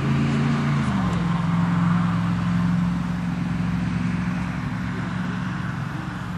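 Motor vehicle engine running steadily, its pitch dropping a little about a second in, over a steady rush of road noise.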